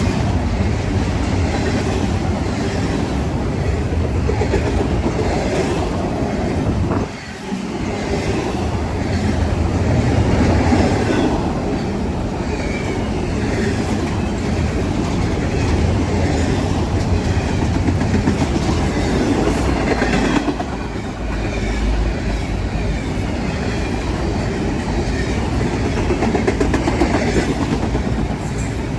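Freight train cars rolling past, a steady rumble with the wheels clicking over the rail joints, briefly dipping in loudness about seven seconds in.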